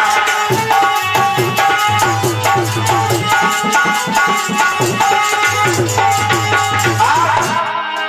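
Instrumental passage of a Hindi devotional bhajan: a melody line carried over a quick, steady hand-drum rhythm with light shaker-like percussion.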